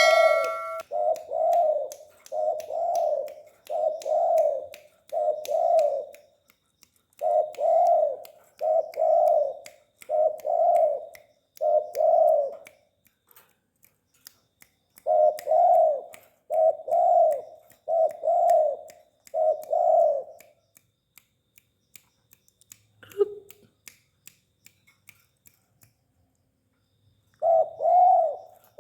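Spotted dove cooing: phrases of five or six low, evenly spaced coos separated by short pauses, then a long pause broken by one short lower note before the cooing resumes near the end. Faint regular clicks run under the calls, and a metallic ding is fading out at the very start.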